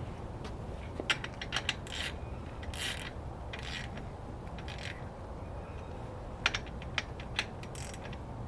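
Ratchet wrench clicking as a bicycle wheel's axle nut is tightened, in two runs of sharp clicks with a pause between.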